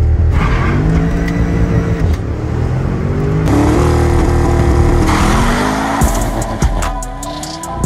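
Porsche Panamera Turbo's twin-turbo V8 under acceleration, its revs climbing and then stepping down or jumping up with several paddle-shifted gear changes. A rapid run of sharp clicks comes in near the end.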